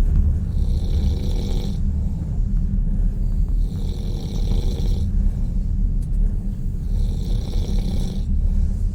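A person snoring in a railway sleeper carriage: three long snores about three seconds apart. Under them runs the steady low rumble of the train carriage.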